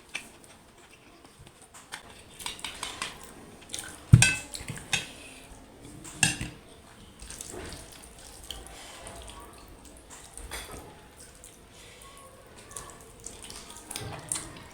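Clinks, knocks and scrapes of a plate and cutlery while eating a meal of mutton curry, rice and dal. The two loudest knocks come about four seconds in and about six seconds in.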